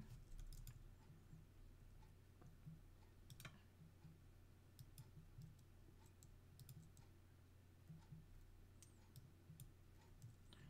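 Faint, irregular clicks of a computer mouse and keyboard as an order is entered, over a low steady hum.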